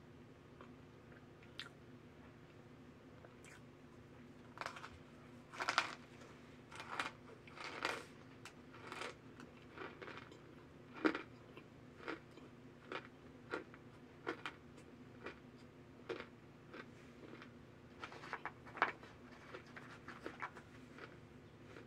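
Hard cornstarch chunks being bitten and chewed close to the mouth: a run of irregular, crisp crunches that starts a few seconds in.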